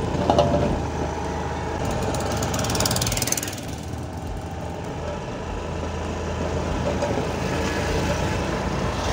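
A two-wheeler's engine runs steadily as it rides a rough gravel dirt track, with road and wind noise. Other vehicles pass close by, including a car and a scooter.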